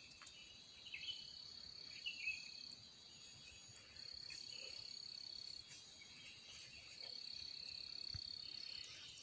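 Faint, steady high-pitched insect trilling, growing louder for two stretches about four and seven seconds in. A few brief chirps are heard near the start.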